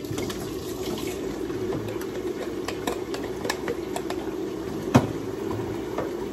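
Tap water running steadily while baby bottles are washed, with scattered light clicks of the bottles and their parts and one sharper knock about five seconds in.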